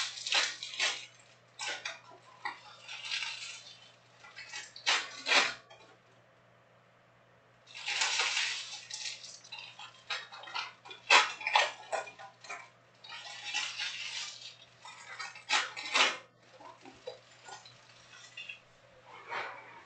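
Foil trading-card pack wrappers crinkling and rustling in irregular bursts with sharp crackles as the packs are handled and opened, with a quiet pause of about a second and a half around six seconds in.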